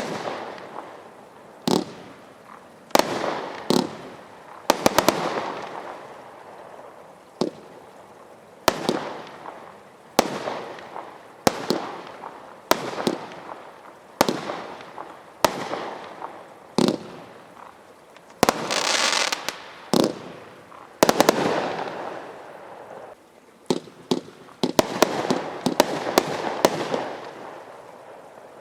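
Consumer barrage fireworks going off shot after shot, a sharp bang roughly every second or so, each bang trailing off into crackling. About two-thirds of the way through, a denser hissing burst lasts around two seconds.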